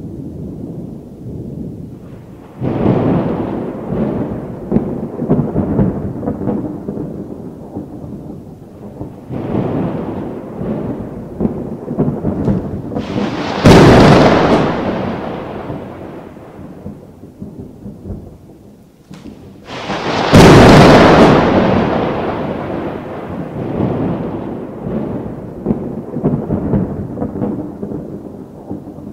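Violent thunder: repeated rolling rumbles, broken by two sudden, sharp cracks about 14 and 20 seconds in that are the loudest moments, each dying away into a long rumble.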